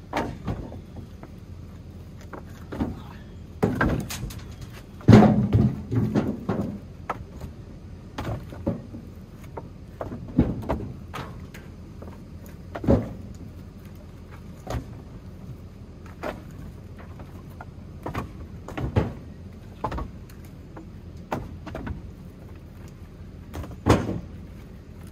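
Split firewood being stacked by hand: irregular wooden knocks and clunks as pieces are set down on the pile, with a louder cluster of clattering about five seconds in.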